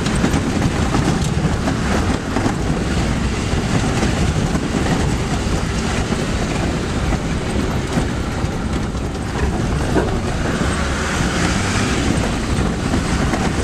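Land Rover Defender driving along a rough dirt track, heard from inside the cab: steady engine drone mixed with tyre noise and jolting knocks from the body over the uneven ground.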